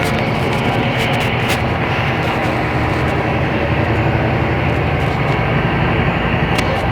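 Scania K270IB bus's rear-mounted diesel engine running steadily under a constant drone, with a few brief sharp clicks about a second in and again near the end.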